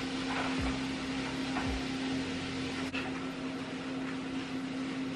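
Steak sizzling in an oiled frying pan on a stove burner turned down to a lower heat, an even crackling hiss over a steady low hum, with a couple of soft thumps about half a second and a second and a half in.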